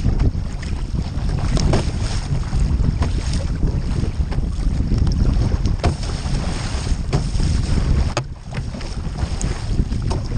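Wind buffeting the microphone in a steady low rumble, with water splashing from surf ski paddle strokes every second or so. The wind drops briefly about eight seconds in.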